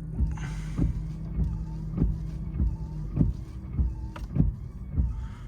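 Honda HR-V windshield washer and wiper motor running: a steady electric hum with a regular knock a little under twice a second as the wipers sweep. A hiss of washer spray comes near the start, and one of the motor tones stops about three seconds in.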